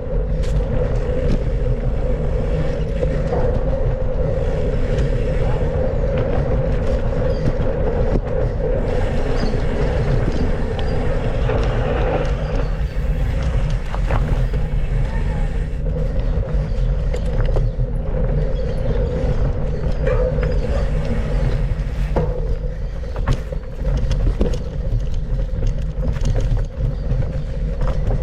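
Steady rushing rumble with a constant hum, broken by many short clicks and knocks, typical of a mountain bike ridden over a rough dirt trail and heard from a camera mounted on the bike or rider.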